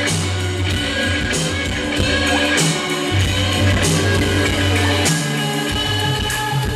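Live band playing a song, loud and full, with a deep bass line and keyboards, heard amplified through a club's PA from within the audience.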